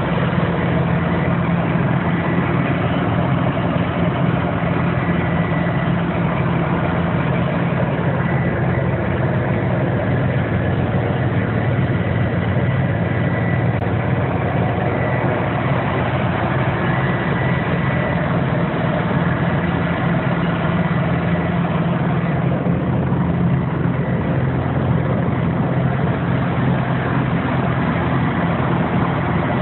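2007 Morbark 4600 XL horizontal grinder's diesel engine running steadily at a constant speed, with a faint high whine that comes and goes.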